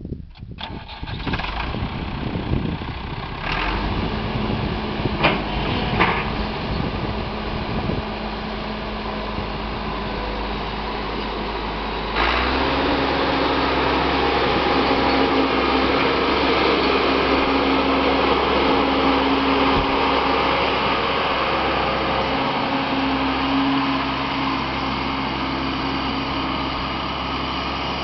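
The Ford/Versatile 276's four-cylinder diesel engine catches and runs at idle, with a few sharp knocks a few seconds in. About twelve seconds in it is throttled up abruptly and runs steadily at higher revs as the tractor drives.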